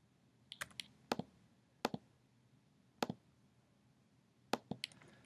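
Computer mouse and keyboard clicks: a dozen or so short, sharp clicks, some single and some in quick pairs, at uneven intervals.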